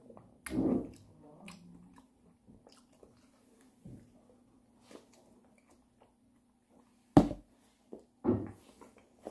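A person eating soft fruit chunks from a plastic cup: chewing and mouth sounds, with a sharp knock about seven seconds in and another sound about a second later.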